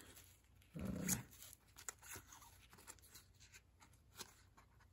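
Faint clicking and rustling of a stack of baseball trading cards being leafed through by hand, with one short pitched sound, a grunt or whine, about a second in.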